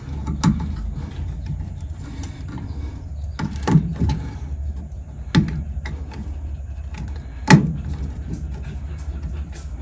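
Rubber brake pedal pad being worked onto a steel brake pedal arm by hand: a handful of short sharp knocks and slaps of rubber against metal, the loudest near the end, over a steady low hum.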